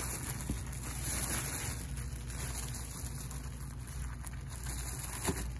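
Clear plastic bag crinkling and rustling as it is untied and opened and a hand reaches inside.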